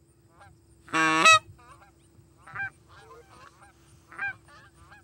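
Canada geese honking: one loud, close honk about a second in, then fainter scattered honks from an incoming flock.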